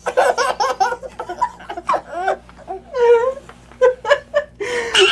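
A baby laughing in repeated bursts of giggles and belly laughs while being tickled.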